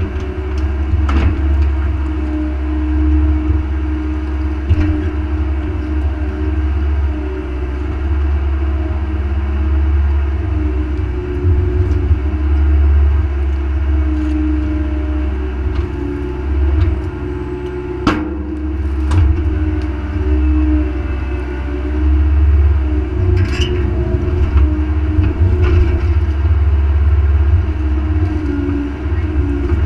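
Mini excavator's diesel engine running steadily, its pitch wavering slightly, as the boom and bucket are worked in mud. A few sharp knocks cut through it, the loudest about 18 seconds in.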